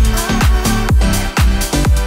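Electronic dance music: a steady four-on-the-floor kick drum, about two beats a second, under sustained synth chords, with no vocals.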